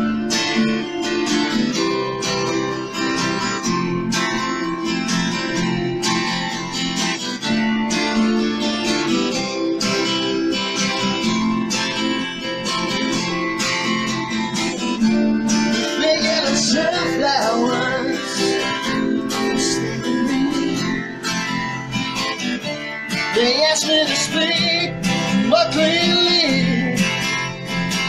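Two acoustic guitars strummed together in a steady rhythm, an instrumental break in a song played live. From about halfway through, a higher melody with bending, wavering notes rises over the strumming.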